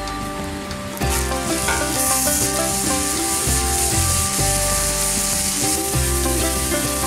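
Raw ground beef hamburger patties sizzling on a hot Blackstone flat-top griddle as they are laid down one after another. The sizzle gets louder about a second in. Background music plays over it.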